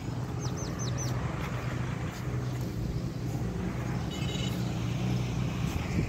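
Dust-storm wind buffeting the microphone as a steady low rumble and rush. A bird gives four quick falling chirps about half a second in, and calls faintly again near four seconds.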